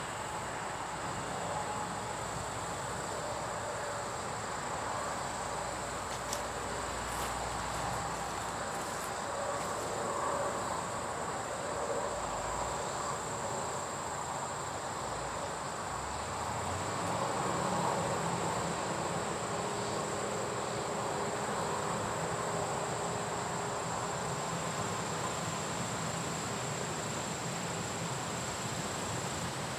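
Combine harvester working a corn field, a steady broad mechanical drone whose low hum shifts about halfway through. A continuous high-pitched trill of insects runs over it.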